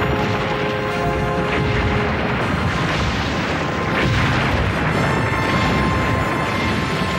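Cartoon soundtrack of continuous low rumbling and booming effects, an earthquake-like cataclysm, over dramatic music with sustained tones.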